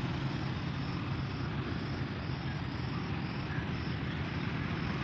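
Outdoor roadside ambience: a steady low rumble and hiss, with faint insect chirping repeating about two to three times a second.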